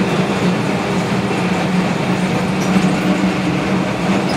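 Vintage tram TW 206 running along its track, heard from inside the driver's cab: a steady rolling noise with a constant low hum.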